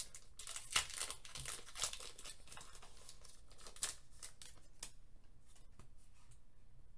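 Foil Pokémon TCG booster pack (Sword & Shield Darkness Ablaze) crinkling and tearing as it is opened by hand. The crackles come thick in the first two seconds, then a few scattered ones until about five seconds in.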